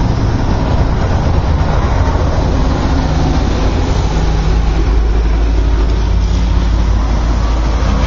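Compact sedan driving up toward the camera, its engine running steadily under a constant low rumble.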